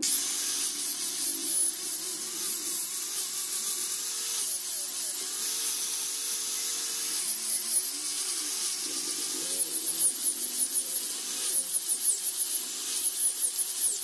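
Makita angle grinder with a sanding pad running, sanding and shaping a wooden knife-handle blank. Its high whine dips and recovers again and again as the pad is pressed into the wood.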